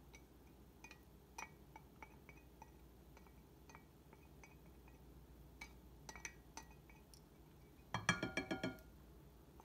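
Spoon scraping thick corn syrup out of a glass measuring cup. Faint scattered ticks run through, then a quick run of ringing clinks of spoon against glass about eight seconds in.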